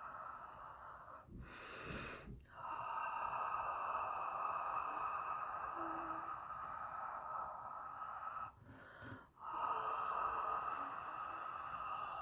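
A person's long, steady breathy hiss, broken twice by short pauses, with a quick intake of breath in the first pause.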